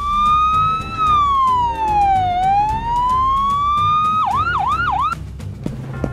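Ambulance siren sound effect: one wailing tone that rises, glides slowly down and rises again, then switches to three quick yelps and cuts off about five seconds in.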